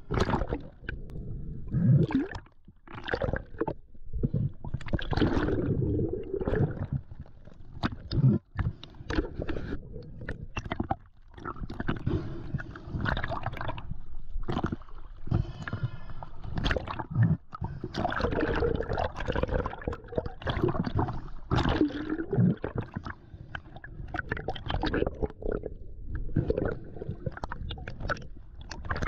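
Seawater sloshing and gurgling in irregular surges over a camera bobbing at the sea surface, dipping in and out of the water.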